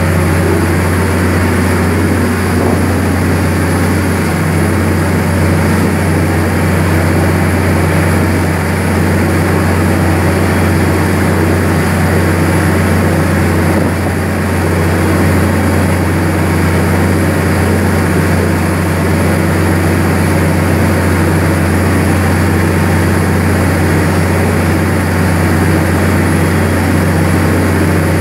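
Diesel engine of a large river passenger boat running hard, a loud steady low drone with the rush of the hull through the water.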